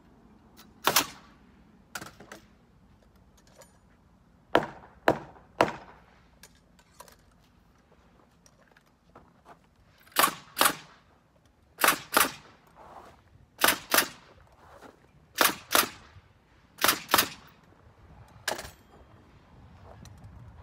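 Pneumatic framing nailer firing nails into the top plate of a wooden stud wall: about seventeen sharp cracks, many in quick pairs about a third of a second apart, with pauses of a second or more between pairs.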